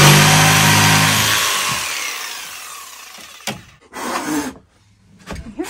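Corded handheld power tool running and cutting a notch into a wooden frame, with a steady motor whine over the rasp of the cut. It is switched off about a second and a half in and winds down over the next couple of seconds, followed by a few knocks as it is handled.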